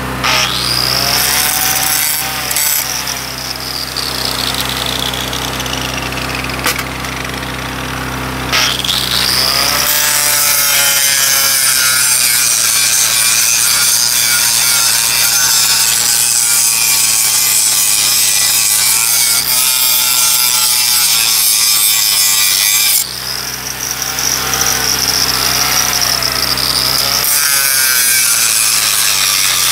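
Angle grinder grinding down a fresh weld on a steel railroad switch point, its motor pitch dipping and recovering as it is pressed into the metal. It runs continuously, with a short easing of the grinding noise about two-thirds of the way through.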